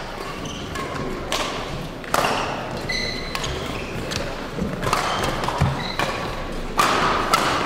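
Badminton rally on an indoor court: several sharp, irregularly spaced racket hits on the shuttlecock and thuds of players' feet on the court floor, echoing in the hall.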